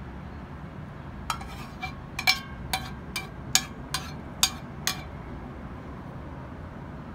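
Metal spoon knocking against a plastic container while scraping out a thick topping: about ten sharp, slightly ringing clinks, roughly two a second, ending at about five seconds in. A low steady hum runs underneath.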